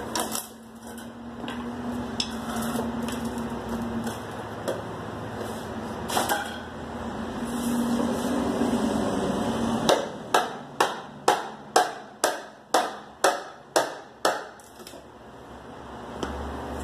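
A run of about ten sharp hammer blows on the wooden shipping crate, about two a second, each ringing briefly, in the second half. Before that, a steady low hum comes and goes with a few scattered knocks.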